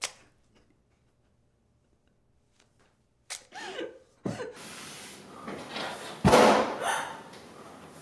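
Foley for a stabbing: after about three seconds of near silence come short pained gasps, then a noisy rush and a heavy thud about six seconds in, the loudest sound, which fades out toward the end.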